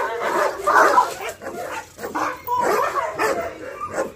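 German shepherd barking in a rapid run of short calls.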